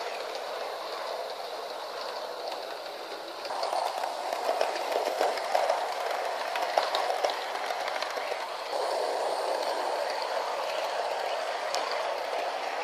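Model train (060-EA electric locomotive model with passenger coaches) running on the track: a steady whirring rumble of wheels and motor on the rails, with scattered light clicks. It steps up in loudness about three and a half seconds in and again near nine seconds.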